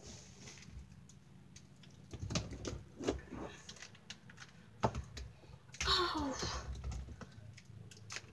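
Plastic wrestling action figures clicking and knocking against each other and the toy ring as they are moved by hand: scattered light taps, a sharp knock about five seconds in, then a busier cluster of knocks just after.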